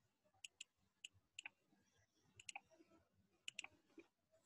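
Faint, sharp clicks of a computer pointing device being worked, about a dozen scattered through, several in quick pairs.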